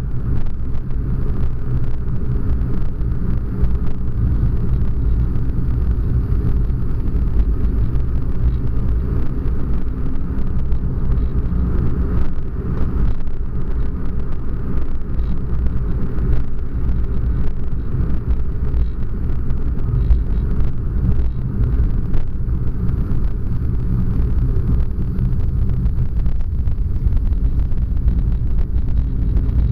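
Steady low rumble of a car driving along a paved road, heard from inside the cabin: engine and tyre noise.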